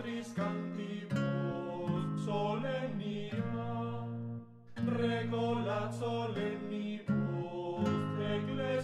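Background music: a gentle melody over sustained low notes, breaking off briefly about halfway through before resuming.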